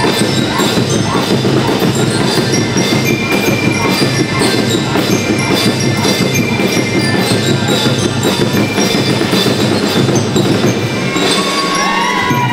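School rhythm band playing: drums keep an even beat while bell lyres ring out the melody in high, bright notes.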